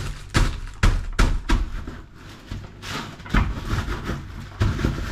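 Wooden rolling pin pressing and rolling over a plastic bag of baked cake crumble on a countertop, crushing it into small crumbs: uneven knocks about two a second, with the plastic bag rustling.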